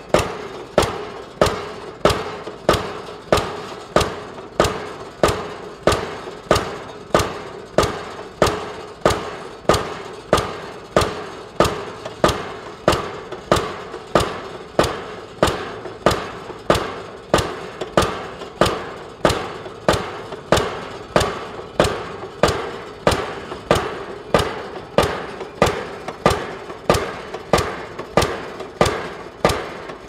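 Link-Belt M70 double-acting diesel pile hammer running, firing in a steady rhythm of sharp, ringing blows a little under two per second.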